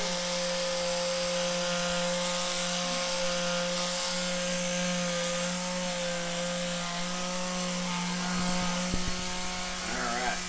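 Handheld electric massager motor running steadily with a low, even hum and a higher whine, wavering slightly as it works over tender thigh muscles; it winds down at the very end.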